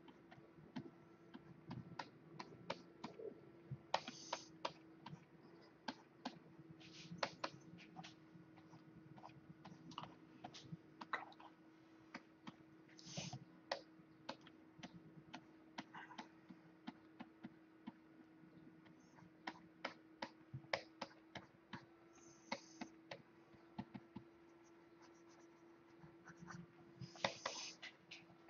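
Faint, irregular clicking and tapping of a computer keyboard and pointer, sometimes several clicks in quick succession, with a few short rustles and a faint steady hum underneath.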